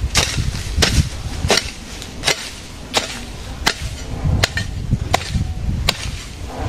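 A broad-bladed hoe chopping into grassy ground to clear weeds: a steady run of about nine sharp strikes, one every three-quarters of a second or so.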